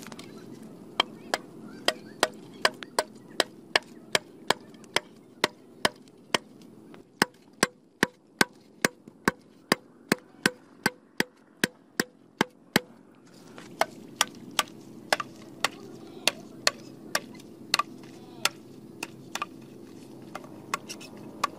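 Machete chopping green bamboo: a long series of sharp knocks, about two to three a second, steadiest in the middle and more irregular towards the end.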